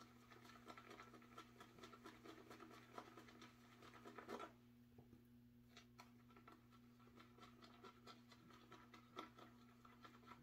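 Faint, rapid scratching and squishing of a shaving brush whipping lemon shaving cream into lather in a ceramic pottery bowl, with a brief pause about halfway. The lather is still a little runny and is just thickening up.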